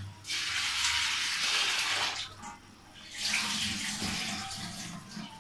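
Tap water running while chana dal is rinsed. It runs in two spells, with a short break a little after two seconds in.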